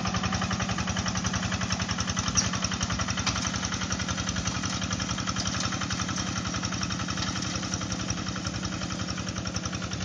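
Single-cylinder diesel engine of a Quick two-wheel hand tractor running steadily with a rapid, even chugging while plowing a flooded rice paddy; it grows slightly fainter toward the end.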